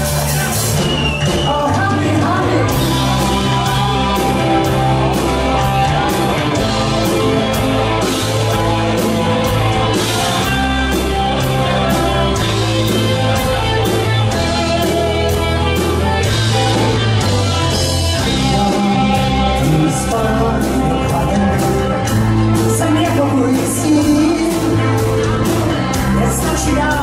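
Live rock band playing, electric guitars and bass over a drum kit keeping a steady beat.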